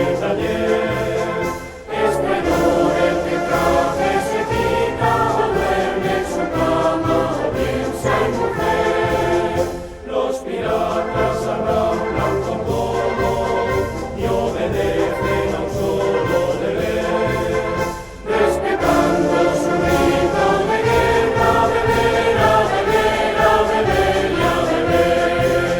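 Choir singing with instrumental accompaniment, in long phrases separated by short breaths about every eight seconds.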